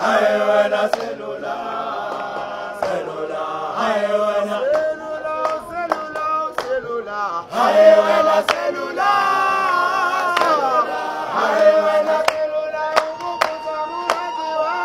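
Music with choir-like singing in long held notes that change every second or two.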